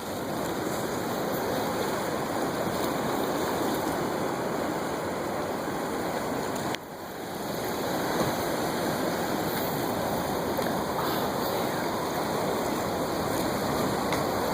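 Ocean surf washing below the pier, a steady rushing noise that dips briefly about seven seconds in.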